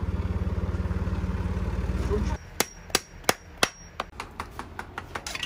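Farrier's driving hammer striking horseshoe nails into a horse's hoof: five sharp metallic blows about three a second, then a run of lighter, quicker taps. Before the hammering, a loud low rumble fills the first two seconds and stops abruptly.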